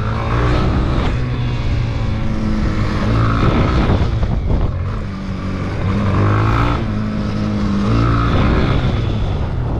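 Yamaha XTZ250's single-cylinder four-stroke engine under hard throttle, revving up and easing off about four times as the bike lifts its front wheel, with wind rushing over the microphone.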